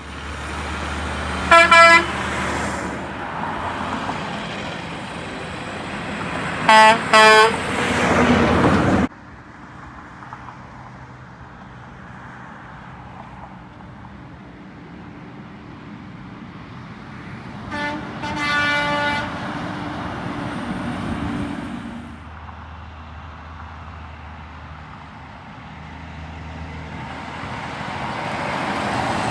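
Semi-trucks driving past, engines and tyres running, with air horn blasts: one short blast about 2 s in, two short blasts around 7 s, and a longer blast around 18 s. The loud passing noise cuts off suddenly about 9 s in, and another truck's noise swells near the end.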